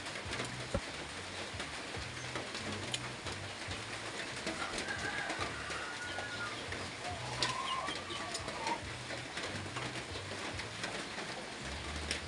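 A dove cooing over and over, in short low phrases, with a few brief higher bird chirps around the middle. Faint crunchy clicks of unripe mango being chewed come through now and then.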